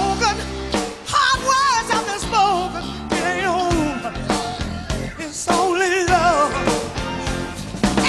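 A rock band plays live with a woman singing lead over electric guitar and drums. Her held notes waver with a wide vibrato.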